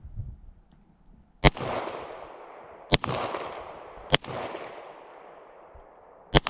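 Four gunshots, spaced about one to two seconds apart, each followed by an echo that dies away over about a second.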